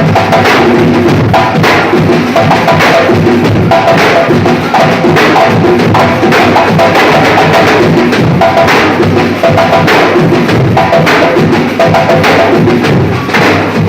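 Batucada percussion ensemble playing a samba rhythm: many drums beating together in a dense, steady groove, with short repeated ringing notes over the top.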